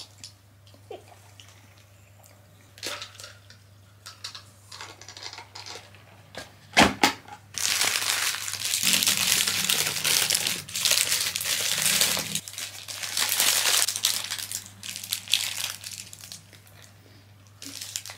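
McDonald's paper sandwich wrapper crinkling loudly for about nine seconds as a burger is unwrapped, after a sharp double knock and a few seconds of quieter handling.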